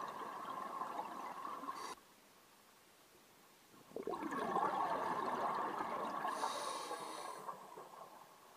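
Scuba diver's regulator exhaling, heard underwater: bubbles gurgling out in two long breaths, one stopping about two seconds in and the next starting about four seconds in and lasting nearly four seconds.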